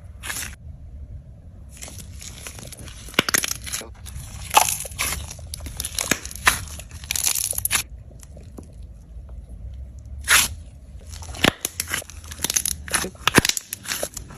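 Slime being squeezed and pressed by hand, giving irregular clusters of short clicks and pops, with a pause in the middle and then a denser run near the end.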